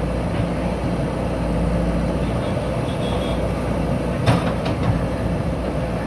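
JCB 3DX backhoe loader's diesel engine running steadily as the backhoe arm works brick rubble, with a sharp knock about four seconds in and a smaller one just after, as the bucket strikes the bricks.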